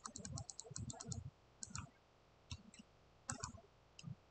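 Computer mouse buttons clicking, a quick run of clicks placing curve points one after another, then a few spaced single clicks.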